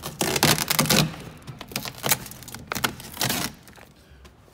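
The car door's plastic dust sheet crinkling and rustling as it is peeled off the door's sticky sealant. The crackling is heaviest in the first second, comes again in a few bursts, and dies down near the end.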